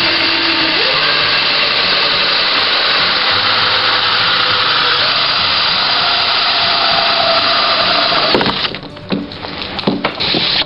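Cordless drill turning a 3¼-inch hole saw in reverse, cutting through the plastic wall of a garbage can: a steady, loud grinding noise that stops about eight seconds in as the saw breaks through, followed by a few knocks as it is worked free.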